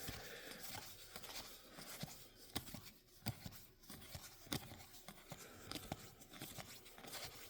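Faint, irregular flicks and rustles of Magic: The Gathering cards being flipped through one at a time in the hands.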